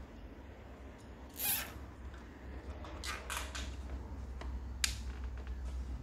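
Nylon cable tie being zipped tight around a bundle of electrical cables, a short rasping pull about a second and a half in and a quicker run of pulls around three seconds, then a sharp click near five seconds, over a steady low hum.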